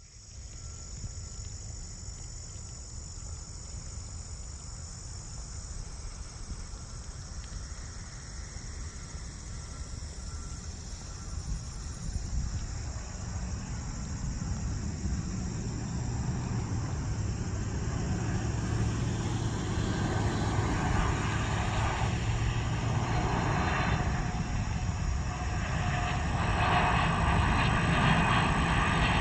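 Boeing 767-400 twin jet engines on landing approach, growing steadily louder as the airliner nears: a low rumble with a whine of several tones coming in over the second half. A faint steady high insect chirring sits underneath.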